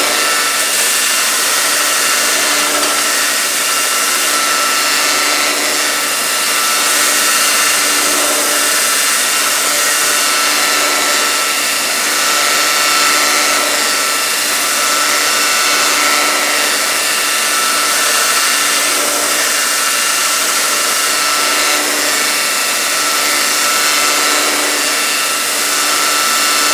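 Homemade belt grinder running steadily, with a small piece of steel pressed against the moving abrasive belt at times: a continuous grinding hiss over a steady motor tone.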